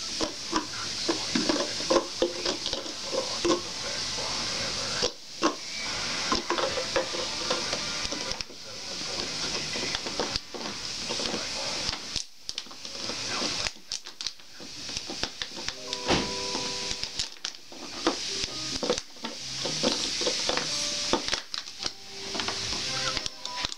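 Pembroke Welsh Corgi chewing and crushing an empty plastic water bottle: a continuous crinkling and crackling of the thin plastic, full of small clicks, pausing briefly a few times.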